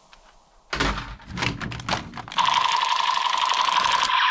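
Plastic toy pistols clattering and knocking against each other as they are handled in a cardboard box, a run of irregular clicks and knocks starting just under a second in. About halfway through, background music with a steady beat begins.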